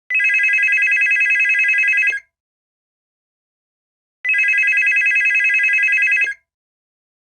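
Telephone ringing: two rings, each about two seconds long with a fast trill, about two seconds apart.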